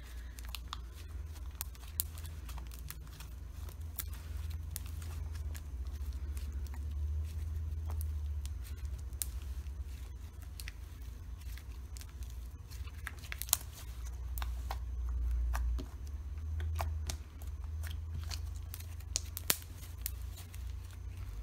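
Hands kneading and squeezing pink slime with Model Magic clay worked into it, making soft sticky clicks and small crackles at irregular moments. A steady low hum lies underneath.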